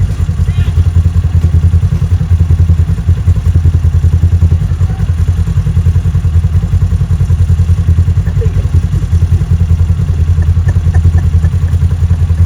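ATV engine running steadily while riding, a loud, fast-pulsing low drone.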